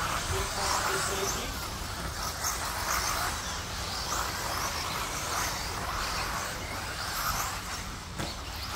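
Mini RC truggies racing on a dirt track: their motors and drivetrains whine, swelling and fading as the cars accelerate and pass, with tyres scrabbling on the dirt.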